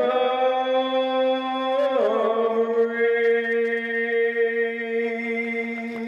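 A man singing into a microphone. He holds one long note, slides down about two seconds in, and holds a lower note for the rest of the time.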